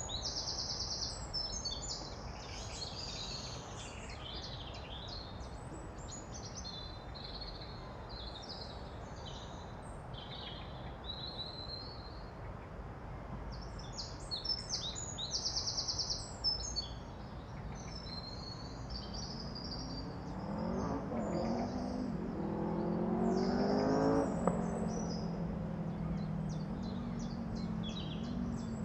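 Several songbirds singing and calling in short phrases and trills over a steady low background noise. From about two-thirds of the way in, a motor vehicle's engine approaches and passes, rising in pitch and loudest a few seconds before the end.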